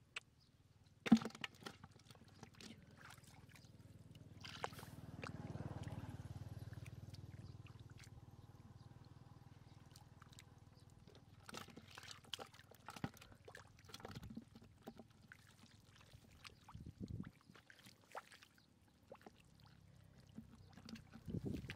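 Muddy water sloshing and trickling as boots and hands stir a shallow puddle of mud, with scattered small splashes. A single sharp knock about a second in is the loudest sound.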